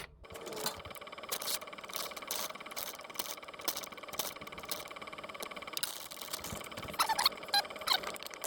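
Steady whine of the campervan's heater running, with irregular taps, clicks and scrapes of bread ingredients being weighed out. A few short squeaky sounds come about seven seconds in.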